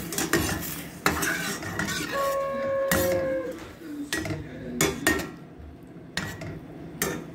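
Slotted spoon stirring tomato sauce and vegetables in a stainless steel pan, knocking and scraping against the pan. About two seconds in, a brief steady tone sounds for roughly a second.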